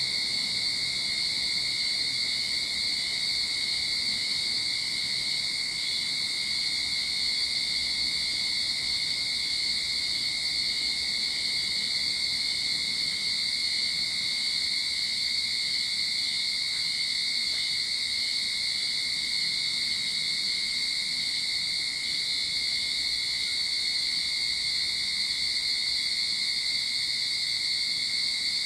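Cicadas calling in a continuous chorus, a steady, high-pitched drone that doesn't let up.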